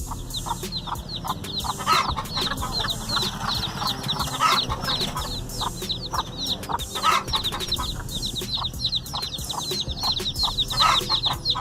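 Chickens clucking over a constant stream of quick, high-pitched cheeps, with louder bursts of clucking about two, four and a half, seven and eleven seconds in.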